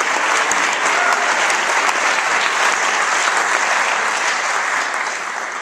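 Audience applauding, the clapping beginning to die down near the end.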